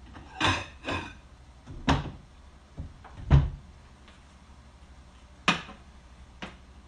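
Kitchen clatter: about six separate knocks and clunks of things being handled, the loudest about three and a half seconds in.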